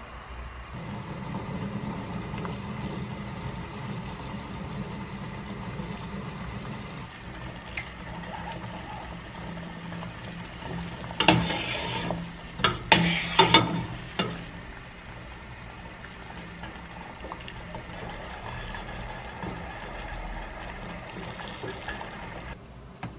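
Anchovy and kelp broth boiling in a stainless steel pot, a steady bubbling hiss. In the middle come a few seconds of sharp metal clinks and scrapes as a mesh strainer knocks against the pot while the anchovies and kelp are lifted out.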